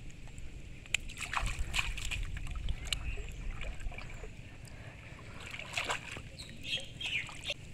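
Water splashing and sloshing as a person wades through a pond, with scattered small splashes and drips.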